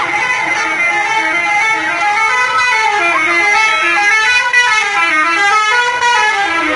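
Bus "telolet" horn, a multi-tone air horn, playing a melody of stepping notes that goes up and down.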